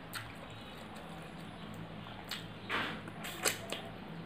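Fingers mixing rice and curry on a stainless steel plate: a few scattered soft clicks and one brief squishy scrape a little past halfway, over a low steady hum.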